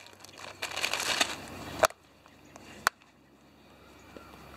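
Plastic ramen noodle packet crinkling as crushed dry noodles are handled, with two sharp clicks about a second apart, the first about two seconds in.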